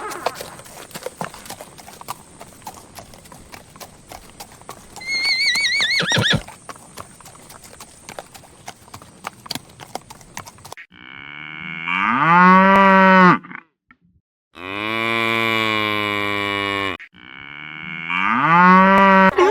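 Cattle mooing: three long moos in the second half, each two to three seconds long, the middle one lower and steadier. Before them there is faint clicking and a short warbling call about five seconds in.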